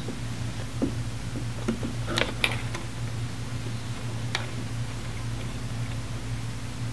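A handful of small clicks and taps as sensor lead-wire connectors are handled and pushed onto their terminals, scattered over the first few seconds, over a steady low hum.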